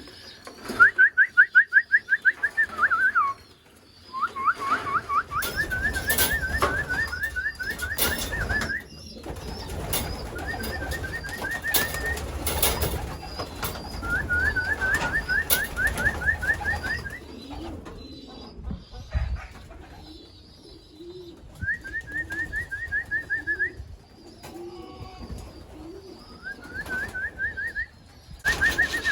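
Racing pigeons in a loft: repeated runs of rapid high peeping, each lasting about two seconds, with low cooing in the second half and occasional wing flaps.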